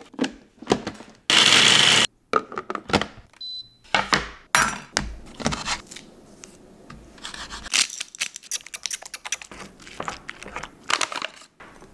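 Kitchen food-prep sounds: a small food chopper runs once for under a second, followed by knocks and clatter of a knife on a wooden cutting board, then quick clicks of a fork and whisk against a bowl as eggs are beaten.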